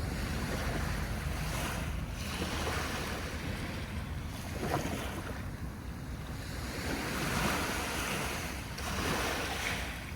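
Ocean waves breaking and washing on the shore, the surf swelling and easing every couple of seconds, with wind buffeting the microphone in a low rumble.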